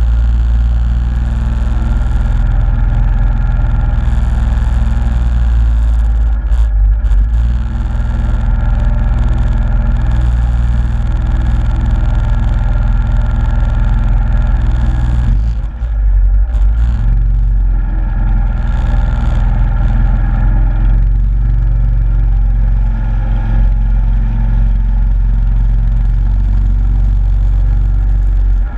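Yamaha Grizzly ATV engine running hard under throttle as the quad drives through mud, a steady loud note that dips briefly twice, about a quarter of the way in and just past halfway.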